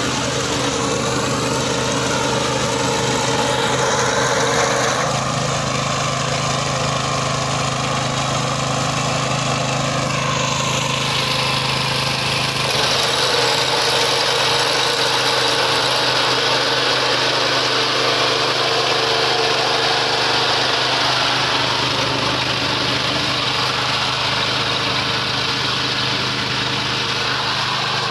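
Small petrol engine of a walk-behind fodder reaper running steadily while its cutter bar mows through grass. The sound shifts abruptly twice, about five and thirteen seconds in.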